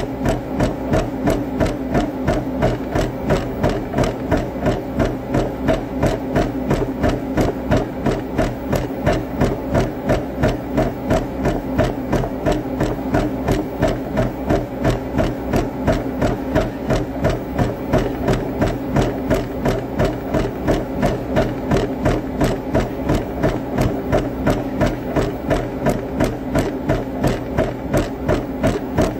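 Running footfalls thudding steadily on a treadmill, about two and a half a second, over the steady hum of its motor and belt.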